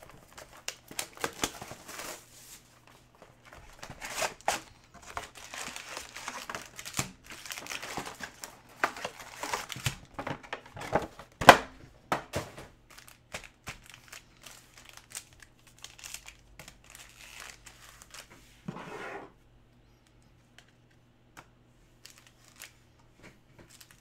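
Plastic shrink wrap crinkling and tearing as a sealed 2020 Mosaic Football hobby box is unwrapped and opened, and its foil card packs are pulled out and stacked. The crinkling is densest in the first half, with one sharp snap about halfway, then gives way to quieter, sparser handling.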